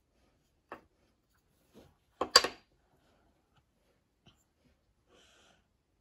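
Solid pine puzzle pieces knocking and clacking against a wooden tabletop as they are handled and fitted together: a couple of light taps, then a louder cluster of clacks a little after two seconds in.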